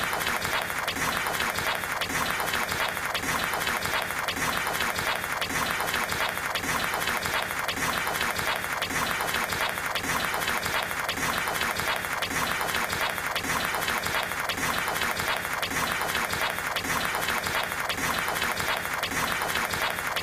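Table tennis ball struck back and forth by paddles and bouncing on the table in a superhuman rally, the hits coming so fast they run together into a steady, unbroken clatter.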